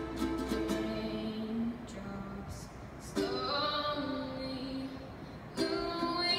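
A teenage girl singing solo while strumming a ukulele, holding long sung notes over the strummed chords. The music dips quieter about two seconds in and again near the five-second mark, and then the singing comes back fuller.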